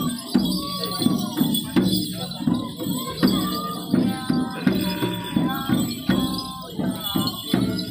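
Music for a Minahasa war dance: a steady beat of about two strokes a second, with jingling and a wavering melody above it.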